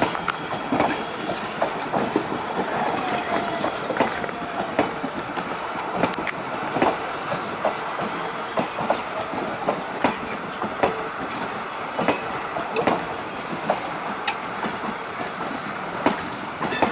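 Passenger coaches rolling past, their wheels clattering over rail joints in a steady run of clicks over a rolling rumble.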